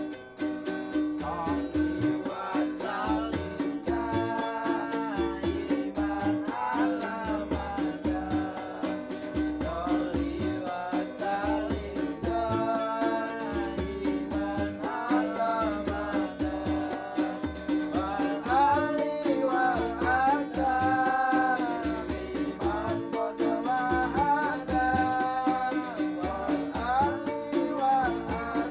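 Music: a voice sings phrase after phrase over a strummed small string instrument like a ukulele, with a shaker-like rattle keeping a fast, even beat.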